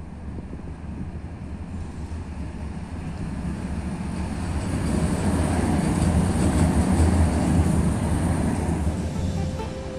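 Tram running along street tracks, approaching and passing close by. Its rail running noise grows louder, is loudest about five to eight seconds in, then eases slightly as it goes past.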